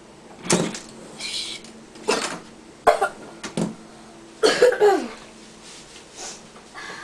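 A person coughing in several short bursts, with a sharp click about three seconds in.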